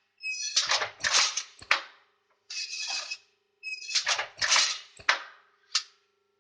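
Semi-automatic blind-making machine working through its cycles: a steady hum under repeated groups of sharp clacks and short bursts of noise, some opening with a brief high whine, the cycle repeating about every three and a half seconds.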